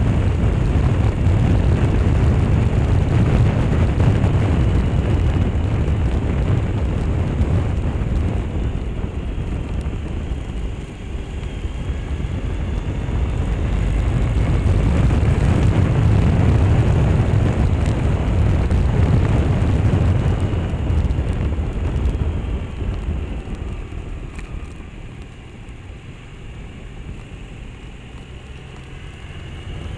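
Wind buffeting the handlebar-mounted action camera's microphone over the motorbike's engine and road noise while riding. The noise dips briefly about a third of the way in and dies down for the last few seconds.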